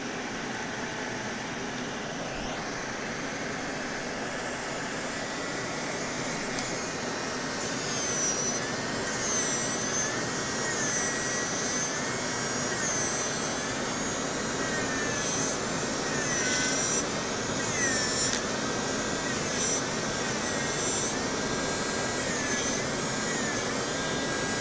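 Manicure dust collector's 100-watt suction fan running with a steady whoosh and a whine. About five seconds in, it gets louder as the power is turned up, and then the whine wavers up and down in pitch.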